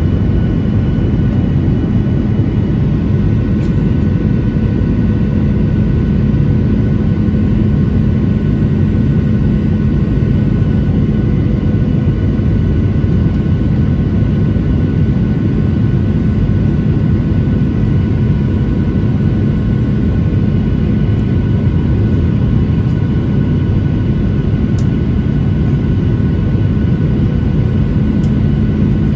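Steady cabin noise of a Boeing 737-900ER in flight: a constant low rumble of engines and airflow with a steady hum, unchanging throughout.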